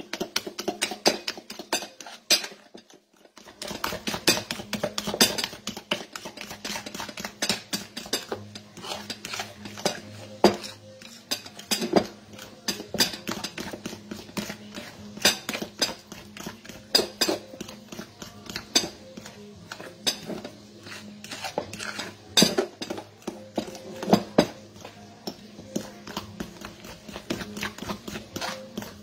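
A fork stirring thick nut-flour dough in a glass bowl: rapid, irregular clicking and scraping of metal against glass, with a brief pause about three seconds in.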